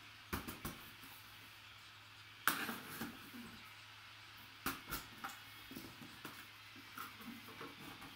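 A cardboard box being cut open with a utility knife and its flaps pulled open: scattered clicks and scrapes, with louder sharp knocks and rustles about two and a half and five seconds in.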